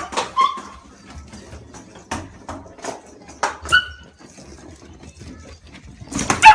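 Shiba Inu giving a few short, high whines, about half a second in and again at about three and a half seconds, among scattered sharp clicks and knocks.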